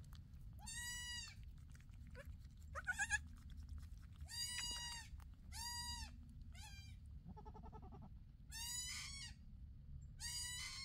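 Newborn kid goat bleating: a series of short, high-pitched, thin bleats every second or two, with one lower call from a goat about eight seconds in.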